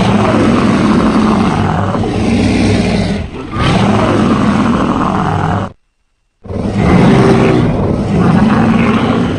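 Afanc monster sound effects: two long, loud, low roars, the first dipping briefly about three seconds in, the second starting after a short pause about six seconds in.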